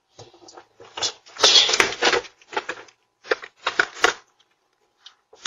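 Irregular rustling and scuffing noises in a handful of short bursts, the loudest about one and a half to two seconds in.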